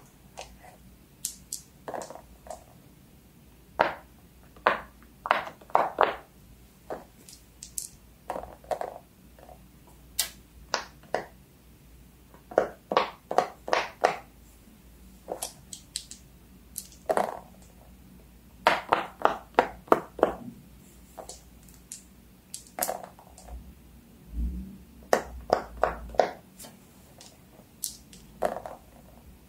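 Fidget toys being handled and clicked: an irregular series of short, sharp clicks and pops, many in quick runs of three or four. A dull low thud about 24 seconds in.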